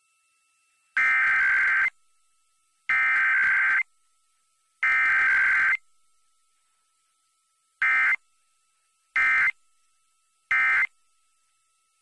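Emergency Alert System SAME digital header for a Required Weekly Test: three identical bursts of rapid two-tone data about a second each, then three short end-of-message bursts.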